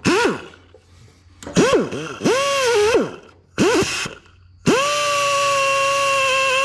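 Handheld grinder triggered in several short bursts, each spinning up and winding down, then held running steadily for about two seconds near the end while it grinds down a rough factory weld on the car's engine-bay sheet metal.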